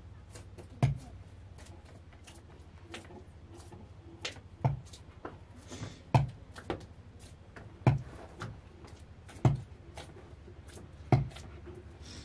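Sharp knocks from hand work at a plastic basin on a stone floor, the loudest about every second and a half, with lighter clicks and taps between them.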